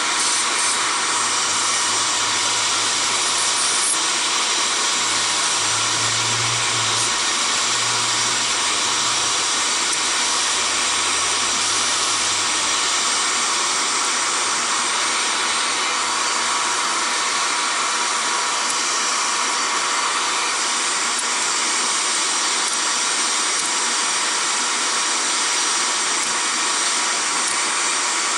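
A steady, unchanging rushing noise, with a low hum underneath during roughly the first twelve seconds.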